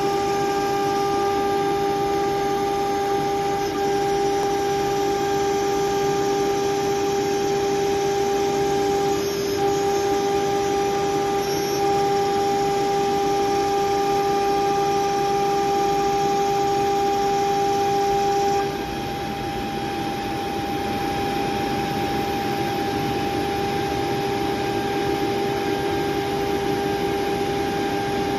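CNC router with a 9 kW HQD spindle milling an aluminium sheet under mist coolant: a steady machine whine with several overtones over a hiss. About two-thirds of the way through, the whine changes and the sound drops a little in level.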